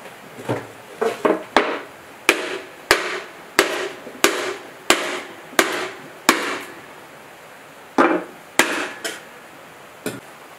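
Hammer blows on a wooden board laid over a diesel engine's cylinder liner, driving the liner down into the cast-iron block. About a dozen sharp blows come at a steady pace, each with a short ring; then there is a short pause and a few more blows.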